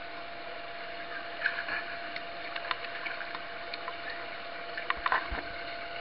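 Steady rush of fountain water jets with a thin steady hum under it, and the splashes of a dog's paws walking through shallow water, sharpest about five seconds in.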